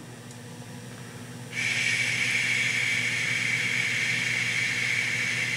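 A steady, breathy whistle held into the radio microphone, used to drive the tube linear amplifier for a power reading. It starts suddenly about one and a half seconds in and holds level, over a low mains hum.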